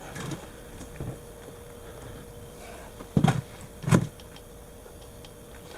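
Handling knocks and clatters: a few light knocks near the start and two louder ones a little past three seconds, over a faint steady hum.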